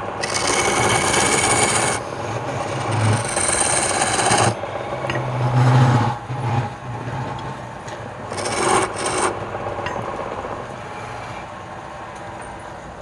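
Wood spinning on a woodturning lathe being cut with a turning tool: bursts of scraping, shaving noise as the tool bites, the longest in the first two seconds and another about eight and a half seconds in, over the steady low hum of the lathe.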